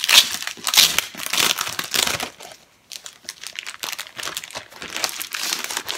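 Clear plastic cellophane packaging crinkling as a scrapbook paper pad is unwrapped, with tape peeled from the flap and the sleeve pulled back. There are many quick rustles, a short pause a little before the middle, then more crinkling.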